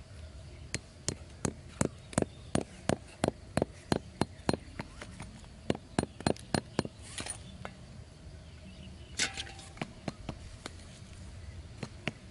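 A heavy chopping knife tapping small bamboo stakes into hard dirt: a quick run of sharp knocks, about three a second, then a few slower ones and some rustling.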